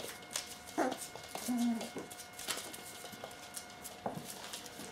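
Springer Spaniel puppy's paws rustling and scratching on spread newspaper, with a couple of short soft puppy whimpers.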